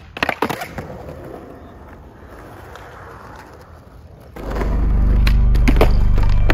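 A skateboard clatters onto concrete with a few sharp knocks as a flip trick comes down, and its wheels roll on. About four seconds in, loud music with a heavy bass starts.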